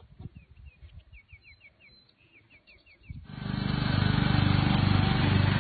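A small bird chirping in quick, repeated short notes. About three seconds in, the engine of a riding lawn mower comes in loudly and runs steadily.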